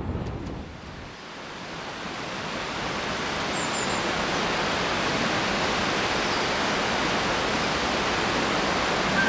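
Rumble of an electric train approaching through a rail tunnel, growing louder for a few seconds and then holding as a steady rushing noise.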